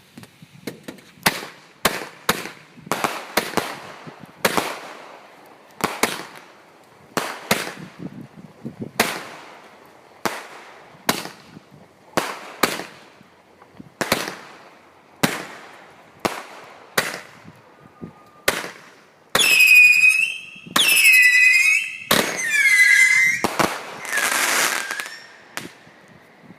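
A 200-gram multi-shot consumer firework cake firing: a long run of sharp shots and bangs, roughly one or two a second. Near the end come four loud whistles in a row, each a second or so long and wavering in pitch.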